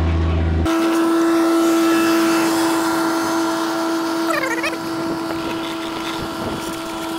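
Riding a small vehicle over paving stones: a steady motor whine over a dense rolling rattle. A deeper hum gives way to the higher whine about a second in.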